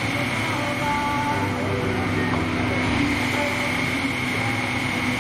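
Aerial ladder fire truck's diesel engine running steadily, with a constant high-pitched whine over it.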